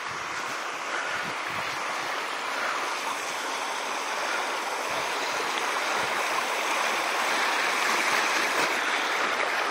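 A small creek rushing over rocks: a steady splashing hiss of running water that grows gradually louder.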